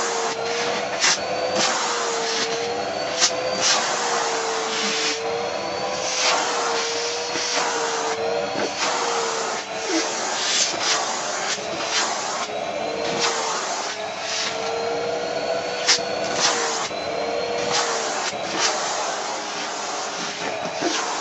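Vacuum cleaner running, its hose nozzle drawn over a Dobermann's short coat: a steady rushing hiss with a motor whine that wavers slowly in pitch, broken by frequent short scratchy bursts as the nozzle moves over the fur.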